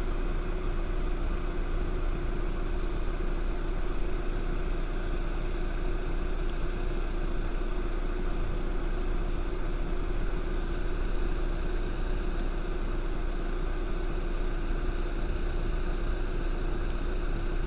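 A car engine idling steadily nearby: an even, unchanging hum with a constant low tone.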